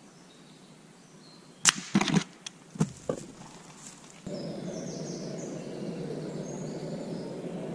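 A pre-charged pneumatic (PCP) air rifle shot: one sharp crack, followed over the next second and a half by several knocks and thuds as the shot grey squirrel falls from a wooden feeder box. Then, a little past halfway, a steadier woodland background with birds chirping.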